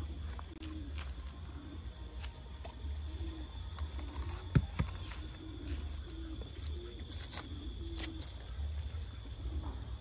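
A dove cooing over and over, short low coos roughly once a second, with a few sharp clicks and snaps of a coconut husk being torn apart by hand, the loudest about halfway through.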